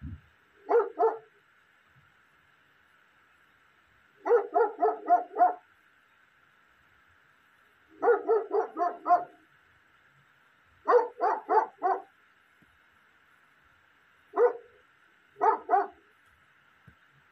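A dog barking in six bouts a few seconds apart, each a quick run of one to about six sharp barks.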